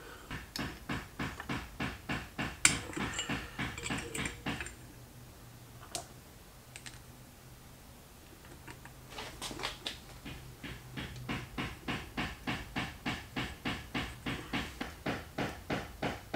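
Quick back-and-forth scrubbing strokes by hand, about four a second, in two bouts with a pause in the middle: cleaning carbon deposits off a two-stroke moped piston.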